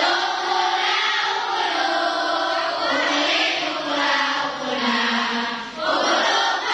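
A large group of young women chanting together in unison, on held notes that rise and fall slowly, with a brief break for breath near the end.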